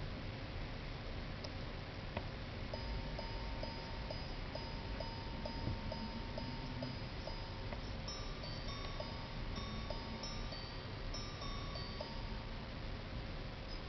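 Gerald Genta Grande Sonnerie wristwatch chiming on its gongs. A run of single lower-pitched strikes about two a second counts the hours, then from about eight seconds in come higher two-tone strikes for the quarters.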